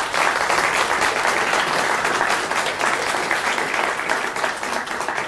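Audience of several dozen people applauding, a steady clapping that thins out near the end.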